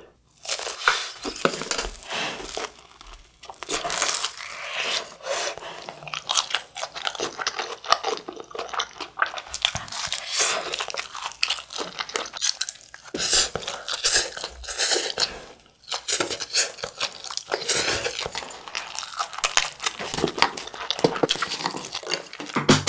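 Close-miked chewing of a mouthful of spicy stir-fried instant noodles: a dense run of wet clicks and smacks, with brief pauses about 3, 13 and 16 seconds in.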